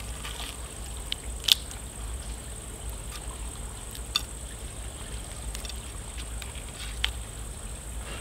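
Sharp cracks and clicks of grilled lobster shell being pulled apart by hand in a pan, about six times, the loudest about one and a half seconds in. Under them run a steady high insect drone and a low rumble.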